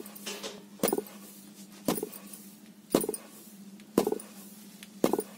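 Wooden pestle pounding roasted sesame seeds in a stone mortar (ural): a dull thud about once a second, five strokes in all.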